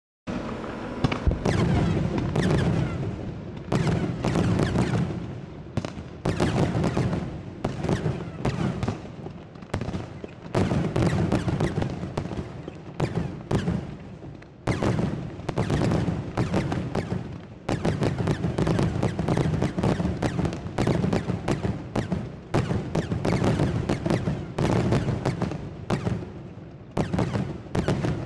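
Daylight fireworks barrage: aerial shells bursting overhead as a dense run of loud, overlapping bangs, several a second, with echo trailing each one. It starts suddenly and thins a little near the end.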